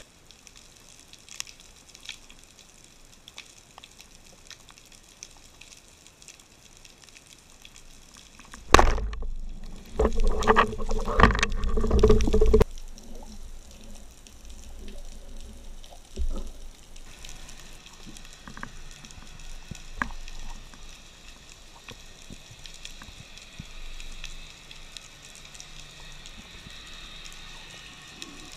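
Underwater ambience picked up by a diving camera, a low wash with faint scattered clicks. About a third of the way in it is broken by a few seconds of loud water churning and splashing.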